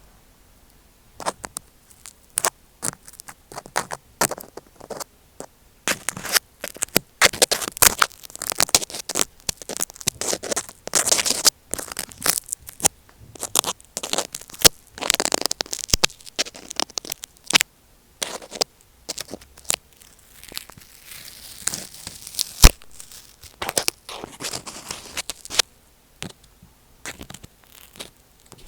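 Close contact noise on the tape-covered capsule of an Apple EarPods microphone, being poked and rubbed: irregular scratching and crinkling strokes with many sharp clicks, some strokes drawn out for a second or two, with brief pauses between.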